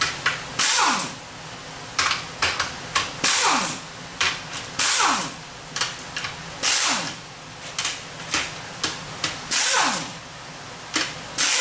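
Pneumatic impact wrench zipping bolts out of a TH400 transmission case: a series of short bursts, about six longer ones a couple of seconds apart with brief blips between, each trailing off in a falling whine as the tool spins down.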